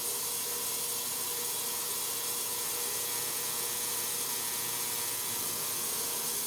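Ultrasonic cleaner running its rinse cycle with watch parts in it: a steady hiss with a faint steady tone underneath.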